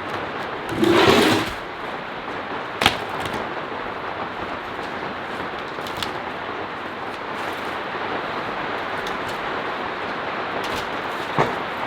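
Steady hiss of heavy rain. A brief louder rush comes about a second in, and sharp knocks come at about three seconds and again near the end.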